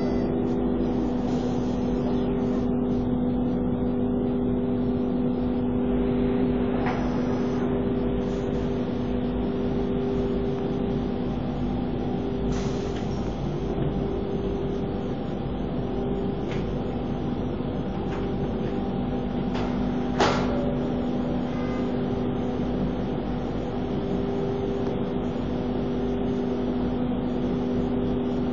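CNC wood router with an automatic tool changer running: a steady machine drone with several steady tones. A sharp clack comes about twenty seconds in, and a fainter one around seven seconds.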